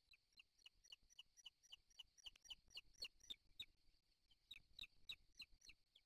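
Booted eagles calling at the nest: a rapid series of short, high, downward-slurred chirps, about four a second, with a brief pause about two-thirds of the way through.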